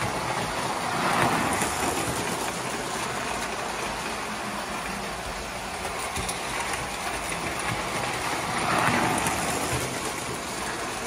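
Lionel toy trains running on three-rail tinplate track, a steady rumble and clatter of wheels and motors. It grows louder twice, about a second in and again near nine seconds, as cars roll past close by.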